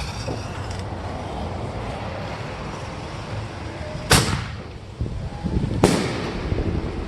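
Two sharp firework bangs about two seconds apart, the first the louder: an Excalibur canister shell launching from its mortar tube and then bursting overhead. Wind buffets the microphone throughout.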